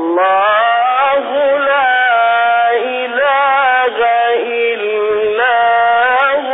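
A male reciter chanting the Quran in a melodic, ornamented style, with long held notes that waver and glide in pitch and only short breaks between phrases.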